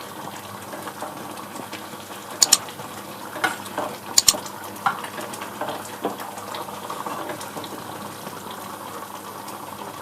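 Dal fry simmering and bubbling in a pan on the gas, with a spoon clinking sharply against the pan several times in the first half as the coriander is mixed in.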